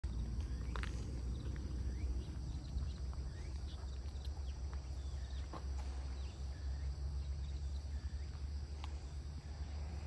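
Outdoor ambience: a steady low rumble with scattered faint bird chirps.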